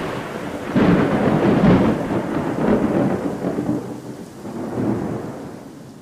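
Thunder over steady rain: a loud peal rolls in about a second in and rumbles on, fading, with smaller swells of rumble later.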